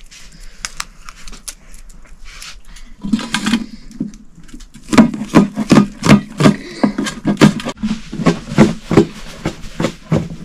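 Cleaver chopping onion on a plastic cutting board: sharp knocks about three a second, starting about five seconds in after a few faint clicks of peeling and cutting.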